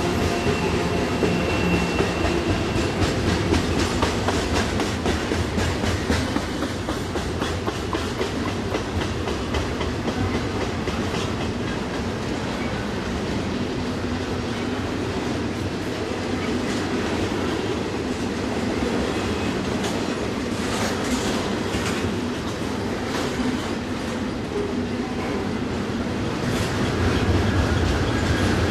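Freight cars of a double-stack container train rolling past, their wheels clacking steadily over the rail. A faint, brief wheel squeal comes about a second in.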